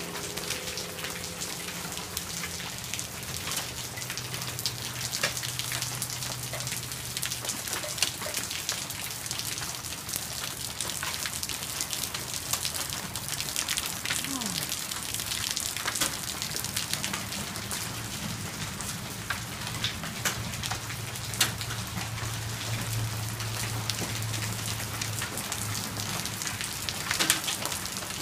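Hailstones coming down hard in a dense, steady clatter of many sharp impacts on the roof and ground.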